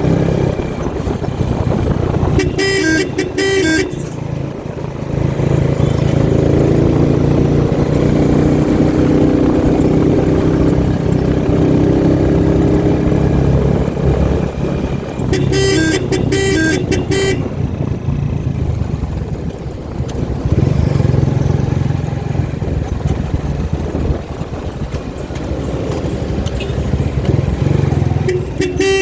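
Motor vehicle engine running on the road, with three bursts of quick repeated horn beeps: about three seconds in, around sixteen seconds in, and near the end.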